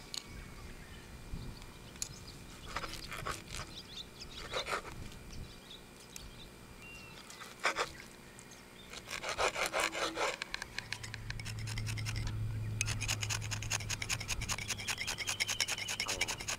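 Knife sawing through a cooked fillet steak on a wooden cutting board: several short bursts of scraping strokes, then a fast, continuous run of scraping strokes near the end. A low steady hum comes in a little past the middle.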